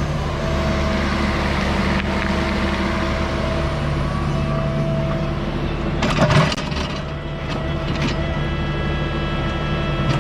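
Diesel engine of a compact earthmoving machine (mini excavator or compact track loader) running steadily at work, with a short, loud clatter about six seconds in.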